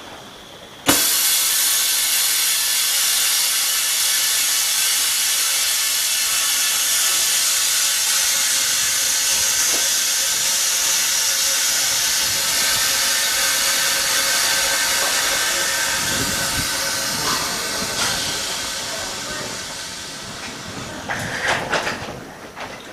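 Pressurised chamber of an OCA bubble remover (debubbling autoclave) venting its compressed air at the end of its cycle. A loud, steady hiss starts suddenly about a second in and slowly fades away in the last few seconds, with a few clicks near the end.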